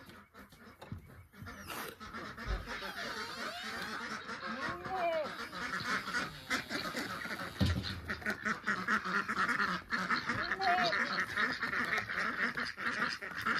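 Flock of domestic ducks quacking in a rapid, continuous chatter that starts about two seconds in, with two dull thumps underneath.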